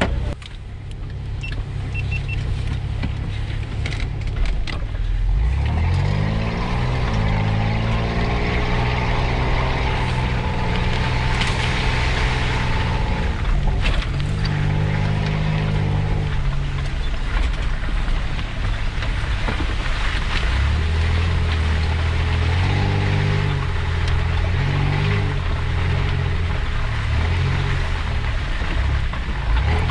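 A 4x4's engine pulling away and driving a muddy forest trail. Its pitch climbs about six seconds in, holds, drops briefly around the middle, then rises and falls with the throttle, over a steady rumble of tyres and body.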